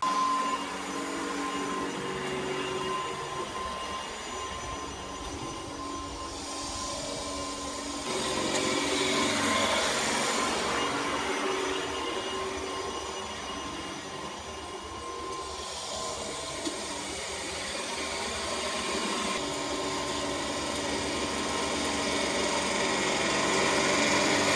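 Allett Stirling battery-powered cylinder (reel) mower running as it is pushed across a lawn: a steady electric whine and whirr of the spinning reel cutting against its bottom blade, getting louder near the end as the mower comes close.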